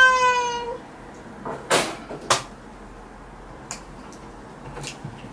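A cat meowing once, a drawn-out complaining call that ends about a second in. Then come two sharp snips of a pet nail clipper cutting its claws, about half a second apart, and a few fainter clicks after.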